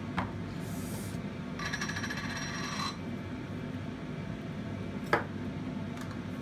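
Spice jars and shakers being handled: a grating rattle lasting about a second as a jar's screw lid is twisted, then a sharp clack of a lid or jar set down on the counter about five seconds in.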